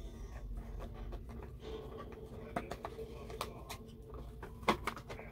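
Soft clicks, taps and rustles of a stack of paper business cards being handled and shuffled in a small cardboard box, with one sharper tap a little before the end. A faint steady hum runs underneath.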